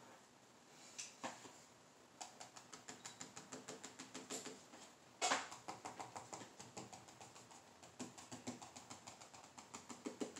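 Pen writing cursive on a manila folder over a wooden table: a faint run of quick scratchy ticks, about seven or eight a second, starting about two seconds in, with one sharper, louder knock about five seconds in.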